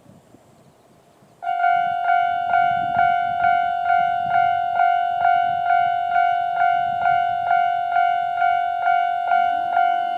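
Japanese railway level crossing warning bell starting up suddenly about a second and a half in, then striking steadily at about two strikes a second; this is the crossing's normal alarm sound. A low steady hum joins near the end.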